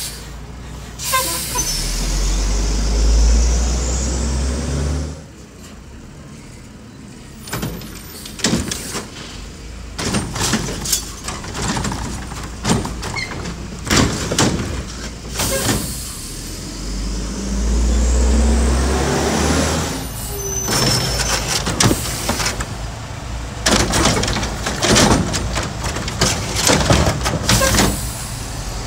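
Mack garbage truck with a Curotto-Can front loader working carts: the engine revs deeply and the air brakes hiss, then comes a run of rapid clanks and bangs as carts are tipped and emptied. The cycle happens twice.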